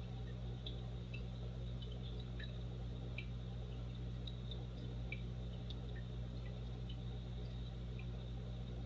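Aquarium filter running: a steady low hum with faint, irregular drips and plinks of water, about two a second.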